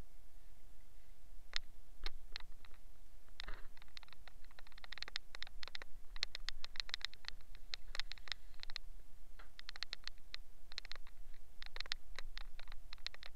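Irregular clicks and scratchy rubbing, sparse at first and then in quick clusters from about three and a half seconds in, as the camera is handled and moved, over a steady electrical hum.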